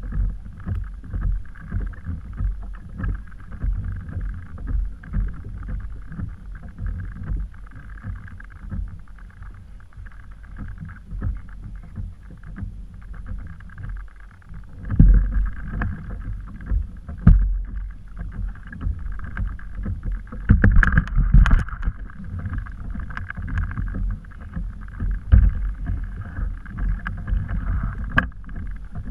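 Water lapping and slapping against a plastic kayak hull, with wind buffeting the microphone. There is a steady uneven rumble, with a few louder knocks and surges in the second half.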